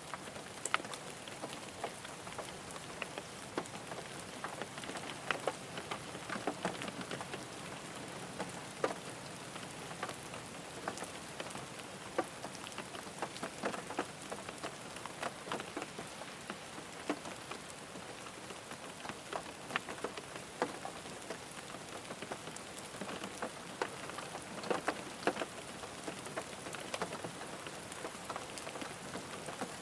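Steady rain falling on a car, with a constant hiss and many separate drops tapping sharply on the body at irregular intervals.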